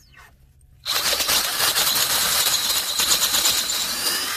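DeWalt cordless drill driving an inch-and-a-half bit into the end grain of a log. It starts about a second in and then runs steadily, a loud grinding noise with a high motor whine over it.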